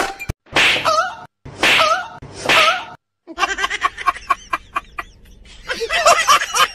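Three loud sneezes in quick succession, each a noisy burst with a voiced edge. After a short pause comes a stretch of women's giggling and laughter.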